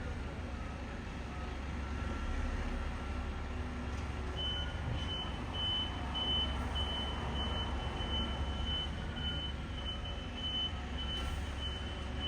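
Back-up alarm of heavy construction equipment beeping in a steady high tone, about one and a half beeps a second, starting about a third of the way in, over the machine's low diesel engine rumble.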